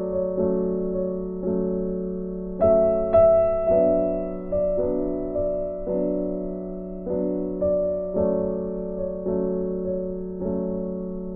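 Background piano music: single notes and chords struck one after another, each left to ring and fade, about one to two a second.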